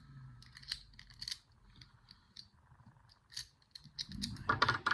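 Small metallic clicks and scrapes of an ABUS four-lever padlock and lock-picking tools being handled, with a louder cluster of clicks near the end.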